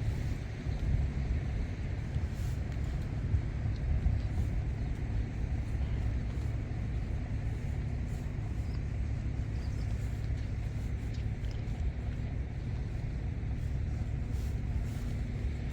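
Rice combine harvester running steadily: a continuous low engine rumble, with a faint steady hum joining in during the second half.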